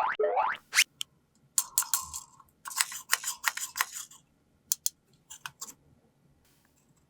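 A rising cartoon boing effect repeats quickly a few times, then sharp clicks and rattles of small plastic toy pieces being handled come in irregular clusters.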